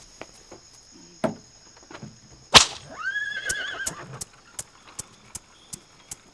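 A horse whinnying: a sharp noisy onset about two and a half seconds in, then a wavering call about a second long. A steady high insect drone runs underneath, and after the whinny come evenly spaced light clicks, about two or three a second.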